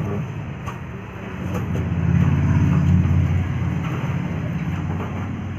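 A low engine-like hum swells about a second and a half in and slowly eases off. Under it come a few faint metal clinks of steel hooks on the trays of a charcoal kuzhimanthi pit oven.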